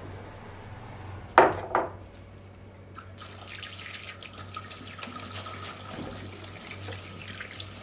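A kitchen tap running water into a plastic colander in a stainless-steel sink as soaked soya chunks are rinsed and squeezed by hand, the steady splash starting about three seconds in. Before that come two sharp ringing clinks a third of a second apart, the loudest sounds, from the glass bowl knocking against the sink.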